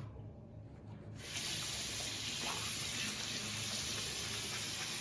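Running water, a steady even hiss that starts abruptly about a second in.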